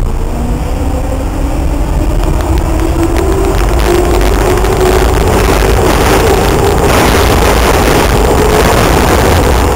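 81-71 metro car running and picking up speed: a whine rising slowly in pitch over a deep rumble, with wheel and rail noise growing louder.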